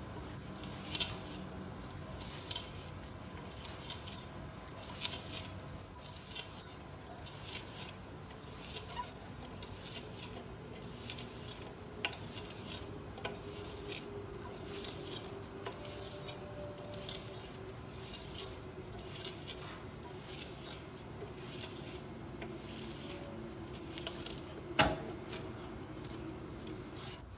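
Hand-turned T-handle screw auger boring into a timber beam: crisp scraping bursts, roughly one a second, as the bit cuts and shaves the wood with each turn of the handle. One loud, sharp knock near the end.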